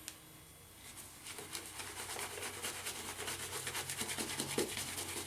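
Shaving brush working soap lather into about a week's stubble on the face. The rubbing is quick and bristly and starts about a second in.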